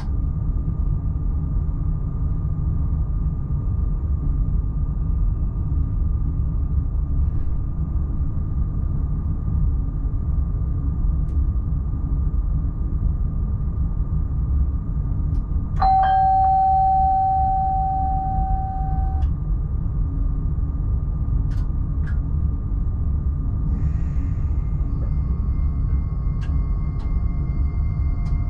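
Steady low rumble and faint high whine of an X40 electric multiple unit heard in the driver's cab. About halfway through, a single chime sounds and rings for about three seconds.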